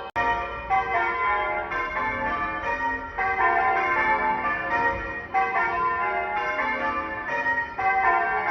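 Church bells ringing: a continuous run of overlapping bell strikes in a rolling sequence, with a momentary break just after the start.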